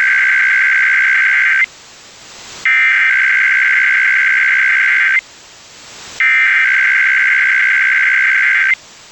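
Emergency Alert System SAME header: bursts of shrill warbling digital data tones, each about two and a half seconds long, separated by gaps of about a second with hiss in between. The first burst is already under way and ends early on, and two full bursts follow. These are the coded header at the start of an alert, here a required weekly test.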